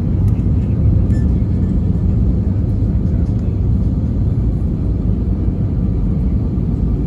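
Airbus A321 cabin noise on approach, heard from a window seat over the wing: a steady low rumble of the engines and air rushing past the fuselage.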